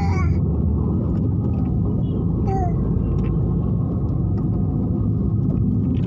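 Steady low rumble of road and engine noise inside a moving car.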